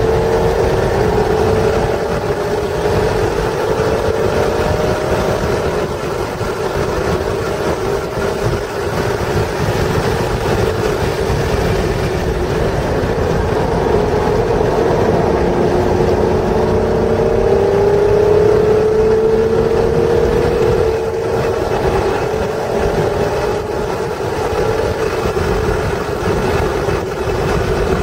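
1996 Acura NSX's 3.0-litre V6 heard from inside the cabin on track, over steady road and wind noise. The engine note climbs slowly in pitch under acceleration at the start, drops away while the car slows for a corner, then climbs again under power from about halfway.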